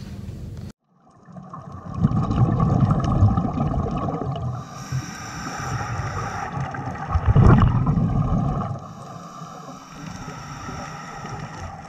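Muffled underwater sound as picked up by a dive camera: bubbling and gurgling rumble that swells twice, about two and seven seconds in, over a steady wash.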